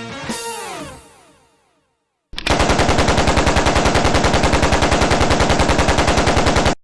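A cartoon character's cry, falling in pitch and fading, then a long burst of automatic rifle fire, about ten shots a second for some four seconds, emptying the whole magazine and cutting off suddenly.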